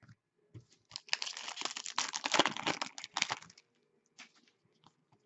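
Dense crinkling and rustling of trading-card packaging being handled, lasting about two and a half seconds, with a few light clicks before and after.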